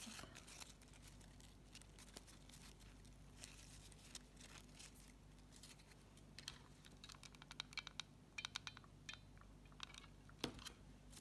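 Faint rustling and small crackling clicks of satin-ribbon flower parts handled between the fingers as a ribbon sepal is pressed onto a rosebud, with more clicks in the second half.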